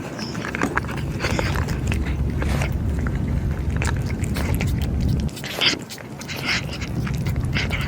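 Cats eating, with irregular small crunches and chewing sounds.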